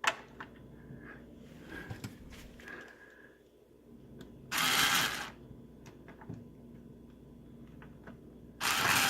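Handling noises from reassembling a microwave's keypad and control panel: a sharp click at the start, then two brief, loud bursts of noise about four seconds apart.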